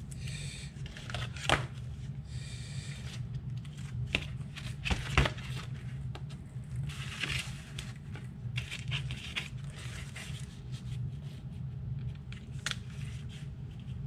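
Handling sounds as a lipo battery and its wires are moved and laid out on a cardboard-covered bench: rustles, scrapes and several sharp clicks, over a steady low hum.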